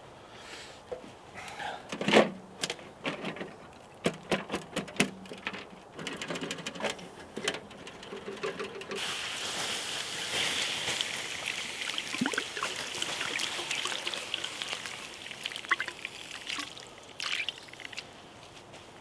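A few knocks and clatters of gear being handled, the loudest about two seconds in, then water poured out steadily for about seven seconds, starting about nine seconds in.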